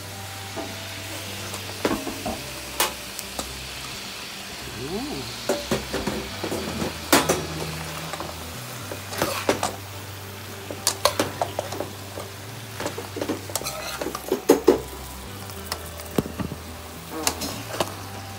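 Vegetables sizzling in a frying pan as they are stirred and tossed, with a utensil knocking against the pan many times at irregular intervals.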